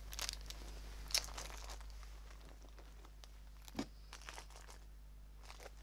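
Faint, scattered rustling and crinkling of items being handled inside a coated-canvas toiletry pouch, with a soft knock just before four seconds in.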